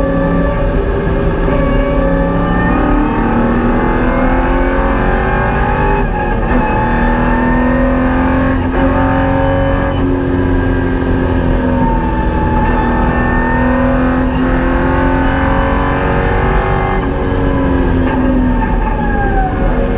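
Holden VY Commodore's LS1 V8 at full track pace, heard from inside the cabin. Its revs climb and drop repeatedly through gear changes and fall away near the end as the car slows.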